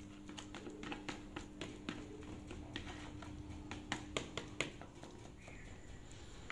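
A metal spoon stirring enoki mushrooms through thick batter in a plastic bowl: irregular light clicks and taps of the spoon against the bowl, which stop a little past halfway. A steady low hum runs underneath and fades at about the same point.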